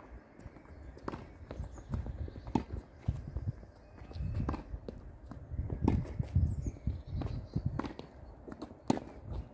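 Tennis rally in doubles: a string of sharp pops as the ball is struck by racquets and bounces on the court, the loudest near the end, with players' footsteps thudding and scuffing on the court.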